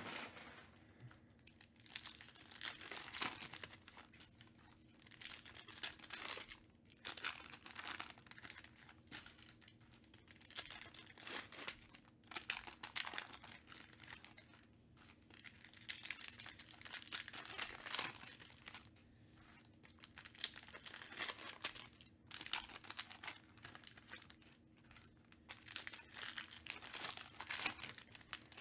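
Foil trading-card pack wrappers being torn open and crinkled by hand, with clear plastic card sleeves handled, in irregular bursts of crackling that come and go throughout.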